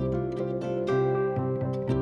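Background music: quick plucked-string notes over a held low tone.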